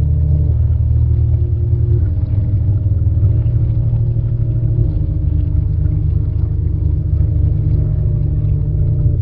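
A loud, low ambient drone from a soundtrack. Held low tones shift to new pitches every few seconds.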